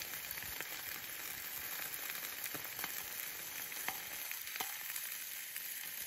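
Pork steak frying in a pan over a small twig-fire stove: a steady sizzle with a few sharp pops.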